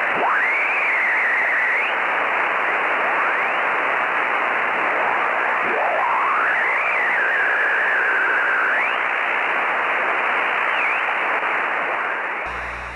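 Radio receiver static: a steady hiss with a few whistling tones that swoop down and up in pitch. It fades out near the end.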